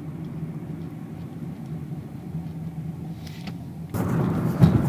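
Inside a slow-moving 2006 Chevy Cobalt, a steady low engine and road hum. About four seconds in, a louder rushing noise sets in, with a single thump shortly after.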